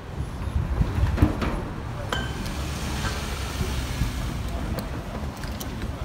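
Low rumble of road traffic with scattered sharp metallic knocks and clanks from work on a level crossing being dismantled; one clank about two seconds in rings briefly.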